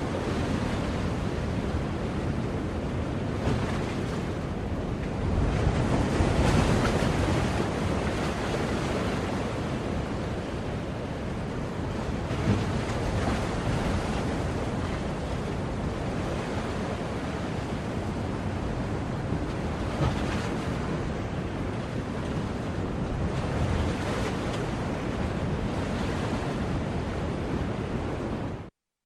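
Ocean surf: waves washing onto the shore in a continuous rush, swelling louder about six seconds in. The sound cuts out for a moment just before the end.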